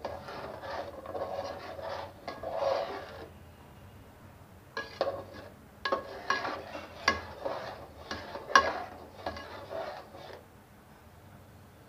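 Metal spatula scraping and stirring a thick spice masala in an aluminium pot, in two spells, the second with sharp clinks of metal on the pot; the loudest clink comes about eight and a half seconds in.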